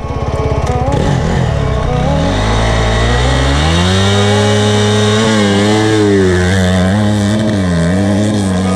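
Motocross dirt bike engine pulling away. It starts at a low, pulsing run, revs up over a couple of seconds, then runs hard with its pitch rising and dipping several times as the throttle is worked.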